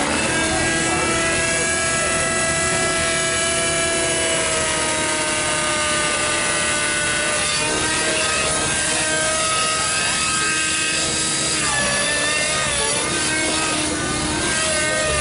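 Compass 3D Plus nitro RC helicopter flying hard 3D: the glow engine and rotor run loud and steady, the engine note sagging and climbing with the manoeuvres and wavering briefly near the end.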